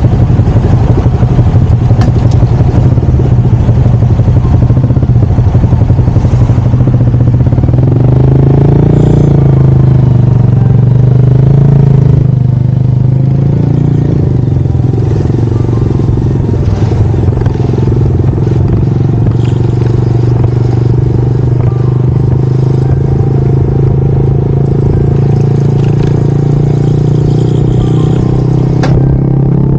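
Honda Monkey 125's single-cylinder four-stroke engine running while ridden in town traffic, its pitch wavering a little about ten seconds in, then holding steady and slightly quieter.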